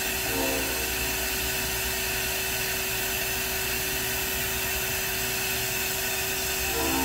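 Ganesh Cyclone 32CS CNC turning center running: a steady machine hum with a constant whine. Right at the end new tones come in as the sub-spindle begins to start up.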